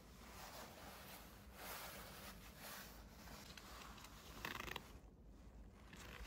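Faint rustling of a nylon anorak as its half-zip is handled, with a short zipper rasp about four and a half seconds in.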